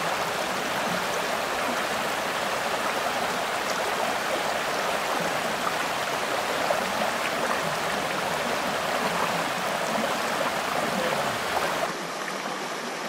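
Small rocky woodland stream running over riffles and between boulders: a steady rush of water. About twelve seconds in it turns a little quieter.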